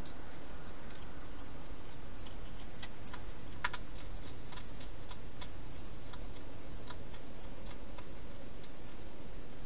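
Hedgehog eating from a bowl, chewing in irregular sharp clicks, with a louder cluster of clicks about four seconds in, over a steady hiss.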